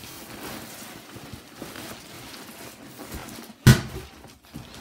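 Rustling of a backpack and its contents being handled, with one loud knock about three and a half seconds in and a lighter knock near the end.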